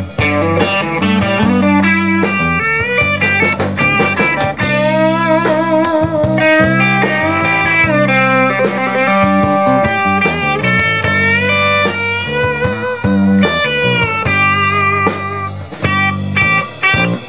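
Instrumental break of a blues song: a Stratocaster-style electric guitar solo of bent, wavering notes over bass guitar and drums.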